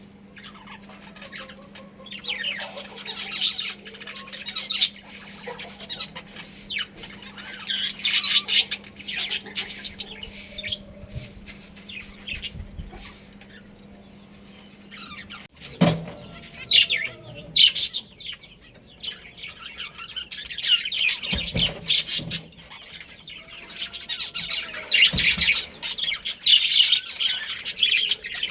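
A group of budgerigars chirping and chattering, with many quick overlapping calls. A low steady hum runs under the calls and stops about halfway through.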